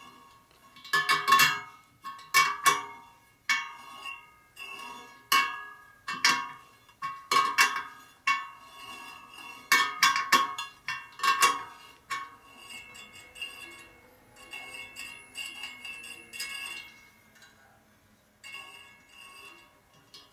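Steel spoke wrench clinking against the spokes and nipples of a laced wire-spoke motorcycle wheel as loose spokes are tightened during truing, each knock leaving a short bell-like ring from the spokes. The clinks come in quick clusters, loudest in the first half, then lighter and sparser.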